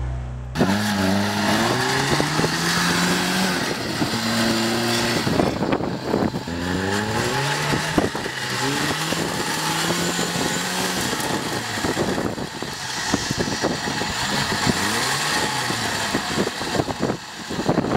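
Jeep Wrangler's engine revving in repeated pulls, its pitch climbing through each pull and dropping back between them, as the off-road 4x4 works its way up a sand mound.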